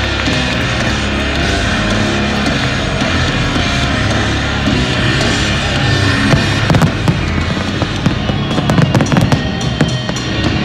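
Wrestling entrance music played loud over a stadium's speakers, recorded from the stands. From about six seconds in, fireworks crackle and pop over it in quick, irregular bursts.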